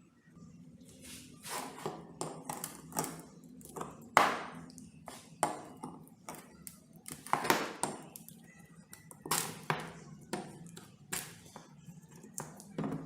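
A series of about fifteen irregular sharp taps and knocks on hard objects, some briefly ringing. The loudest comes about four seconds in and another about seven and a half seconds in, over a faint low steady hum.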